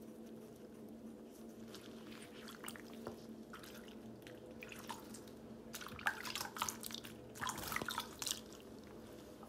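Water trickling and splashing as it is scooped up in cupped hands and poured over a guinea pig's back in a shallow sink bath, in short bursts that grow louder in the second half. A low steady hum runs underneath.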